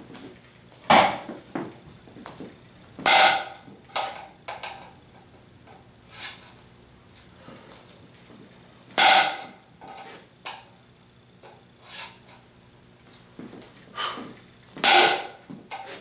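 Plastic re-breakable practice board cracking apart under hand strikes: four loud, sharp cracks with a short ring, with fainter clacks between them as the board's halves are handled and snapped back together.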